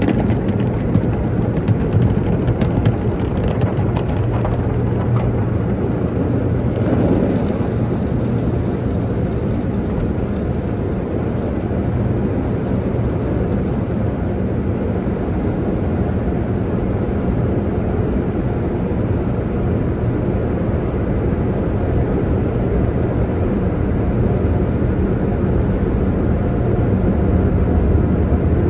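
Automatic car wash air-dryer blowers running with a steady, loud roar, heard from inside the car. In the first few seconds, water spray also hits the windshield.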